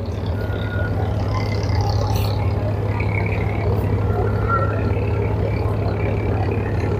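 Diesel engine of an abra, a wooden water taxi, running with a steady low drone as the boat comes in close. It grows louder over the first second, then holds.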